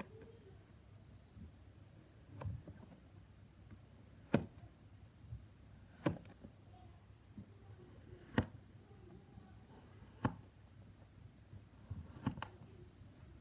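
A small knife slicing down through a block of kinetic sand, each cut ending in a sharp tap of the blade on the board beneath. The taps come about every two seconds, six in all, with soft gritty cutting between.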